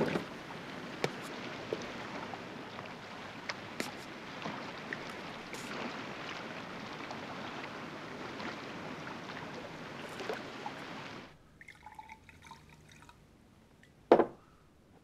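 Water trickling and lapping at a rocky shoreline, with scattered drips and small splashes. It cuts off about eleven seconds in to a much quieter room, where a single sharp knock sounds near the end.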